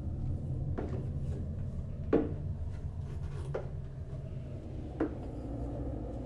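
Slow footsteps, one sharp knock about every second and a half, over a low steady hum.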